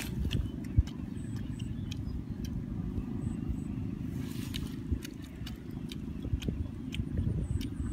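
Steady low rumble with scattered small clicks, and a brief crinkle of aluminium foil about four and a half seconds in as cooked fish is picked off it.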